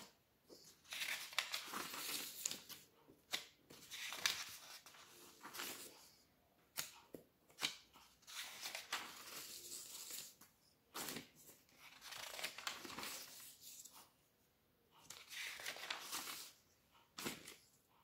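Magazine pages being turned by hand: repeated bursts of paper rustling and flapping, with sharp crinkles and clicks, separated by short quiet pauses.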